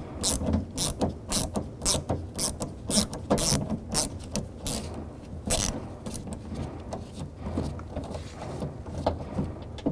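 Ratchet clicking as an 8 mm socket on an extension backs out a door-handle mounting bolt, a series of sharp clicks about two a second that thin out over the last few seconds.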